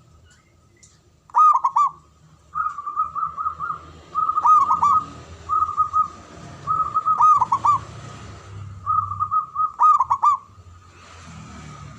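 Zebra dove (perkutut) cooing: short phrases of quick, rolling coos repeated every second or two, some drawn out into a rapid trill.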